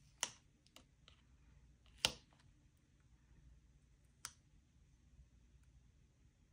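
Four faint, scattered clicks and taps of a cash binder and its envelopes being handled, the loudest about two seconds in.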